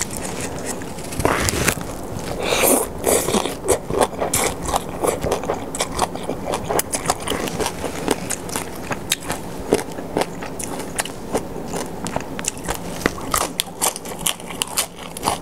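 Close-miked chewing of Thai papaya salad (som tam) and crisp raw greens: a dense run of small wet clicks and crunches, with a bite into a romaine lettuce leaf near the end.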